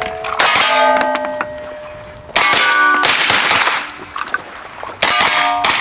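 A TTI TR-9 9mm carbine fires quick strings of shots at steel plates, and each string is followed by the plates ringing in clear, lingering tones. The groups come at the start, about two seconds in and near the end. The carbine is cycling a magazine of mixed junk ammunition, some rounds loaded backward, without a jam.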